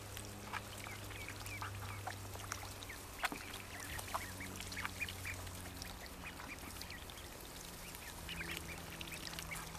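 A flock of Rouen ducklings peeping, many short high chirps overlapping one another, over a low steady hum.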